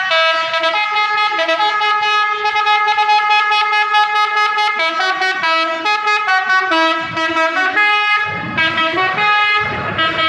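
Basuri multi-tone 'telolet' air horn on a Mercedes-Benz OH 1526 bus playing a tune: a run of held, chord-like notes that step from pitch to pitch, with one long note in the middle and shorter, quicker notes after it. A low rumble comes in about eight seconds in.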